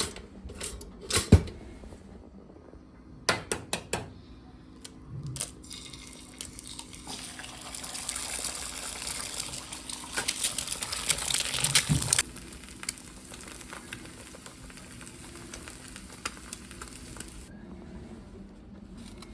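Kitchen sounds: a few knocks and clinks of dishes, then water running from a tap for about five seconds, stopping suddenly.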